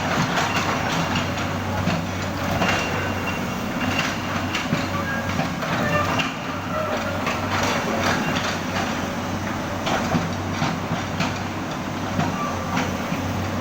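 Excavator at work: its engine runs with a steady low hum under frequent metallic clanks and knocks, with a few short squeaks.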